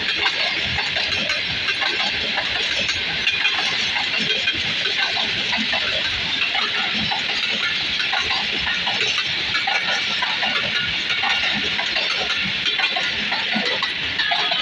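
Passenger train coaches rolling past on the track: a steady hiss and rumble of steel wheels on the rails with irregular clatter and knocks.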